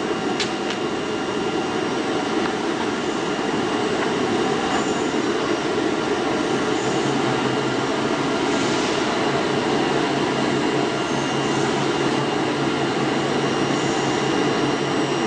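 DCZ70 flatbed oscillating-knife cutting table running, a steady machine drone with a faint high whine. A low hum joins about seven seconds in.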